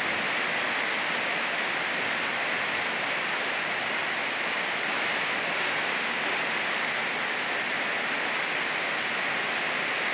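Heavy rain pouring down steadily, a dense, even hiss that does not let up.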